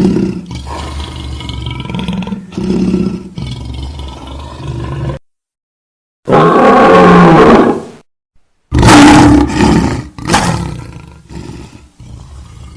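Lion growling low and steadily, then, after a short silence about five seconds in, two loud roaring barks a couple of seconds apart, tailing off into quieter growling.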